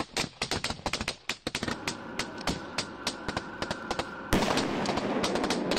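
Rapid gunfire, many sharp shots in quick, irregular succession, swelling into a denser, louder crackle of fire about four and a half seconds in.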